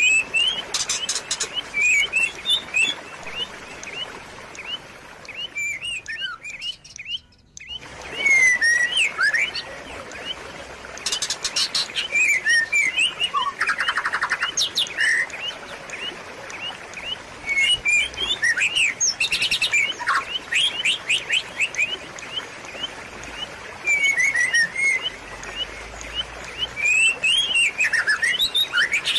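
Small songbirds chirping, whistling and trilling over a steady trickle of running water. The sound dips almost to nothing for about a second and a half, some six seconds in.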